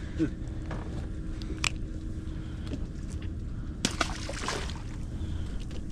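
Boat engine as a low steady rumble, with water sloshing, a few sharp clicks, and a short burst of splashy hiss about four seconds in.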